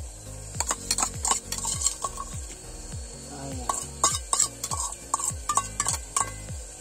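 Metal spoon scraping and clinking against a steel bowl as its contents are scraped into a steel cooking pot: a quick run of short metallic clicks and scrapes with a brief ring.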